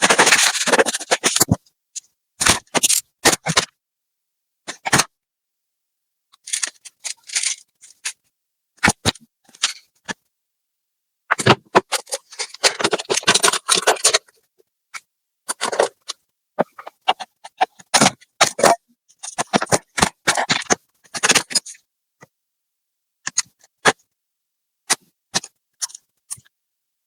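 Laptop being taken apart by hand: short bursts of clicks, scrapes and rattles from tools, screws and plastic and metal parts, with silent gaps between them. The longest bursts come at the start, around twelve seconds in, and around twenty seconds in.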